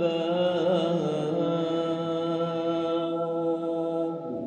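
One voice chanting a Javanese pujian (Islamic devotional chant), drawing out the last word 'albab' as a long held note that wavers in the first second and then holds steady until it stops just before the end.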